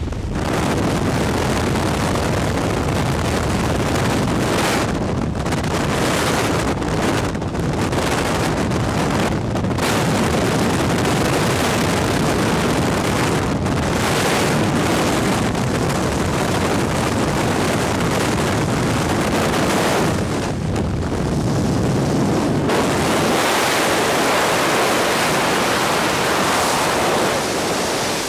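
Loud, steady rush of wind blasting the microphone of a skydiver's camera at the open door of a jump aircraft and in freefall. The tone of the roar shifts about three quarters of the way through.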